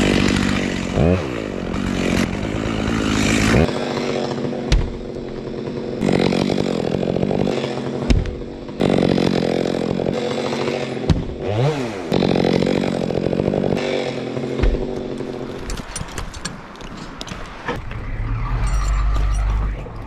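Big Makita gas chainsaw with a 36-inch bar cutting through a fir trunk at full throttle. It revs up and down twice and runs a little quieter later on.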